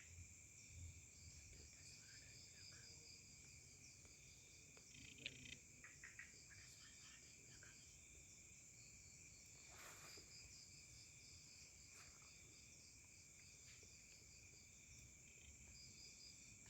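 Faint, steady chorus of forest insects: continuous high-pitched trilling with a pulsing trill on top. A few soft clicks and rustles come about five to six seconds in and again about ten seconds in.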